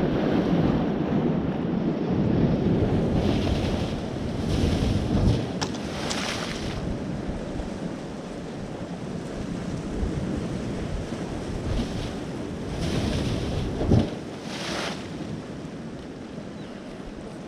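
Seawater surging through a coastal rock blowhole, with several short hissing rushes of air and spray blasting out of the hole like a pressure washer and one sharper burst late on, over wind rumbling on the microphone.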